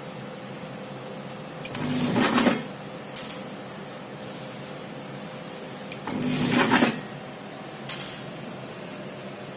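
HY-802 desktop automatic taping machine running two tape-wrapping cycles about four seconds apart. Each cycle is a short motor-driven whirr of a bit under a second, followed by a sharp click.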